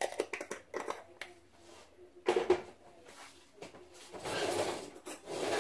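Kitchen clatter from seasoning chicken in a bowl: a quick run of light clicks and knocks, a louder knock a little over two seconds in, then a steady rasping rustle for about a second and a half near the end.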